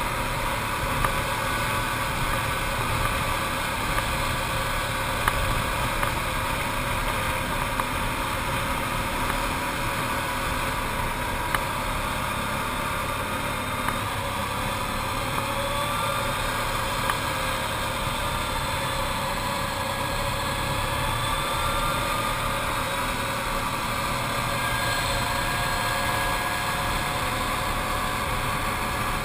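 Arctic Cat TRV 1000 ATV's V-twin engine running steadily under load on a climb, its pitch drifting gently up and down, with a few brief knocks.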